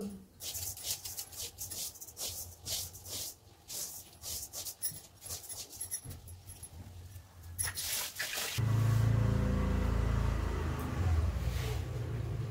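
Hands shaping dough, with glass bangles giving many small irregular clicks and clinks. After about eight and a half seconds this gives way to a steady low hum with a hiss over it.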